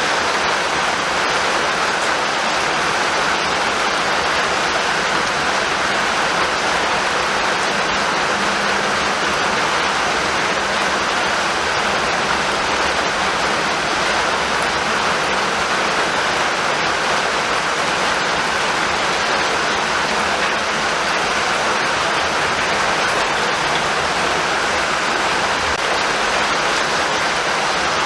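Steady, even rainfall with no thunder.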